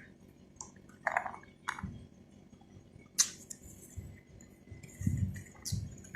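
Close-up mouth sounds of eating soft fruit: wet chewing and squishing in short bursts, with one sharp click about three seconds in.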